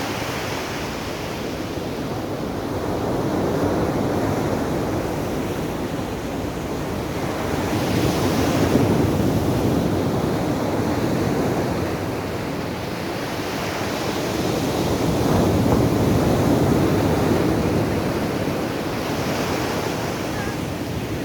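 Big surf breaking on the beach, a steady rushing noise that swells and eases several times as the waves come in.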